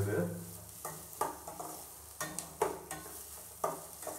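Chopped carrot, beans and onion sizzling in oil in a stainless steel kadai while a metal spatula stirs them, scraping and knocking against the pan several times. The vegetables are being sautéed in the oil alone, without water.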